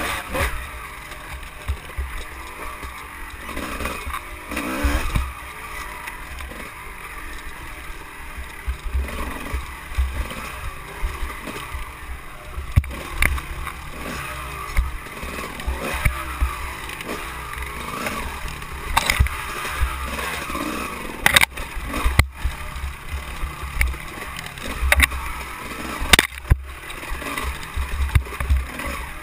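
Dirt bike engine running as it is ridden over a rough, rocky trail, heard close up from the bike itself, with a heavy low rumble throughout and scattered sharp knocks as the bike jolts over bumps.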